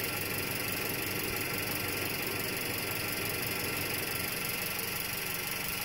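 Car engine idling steadily, an even running sound with no knocks or changes.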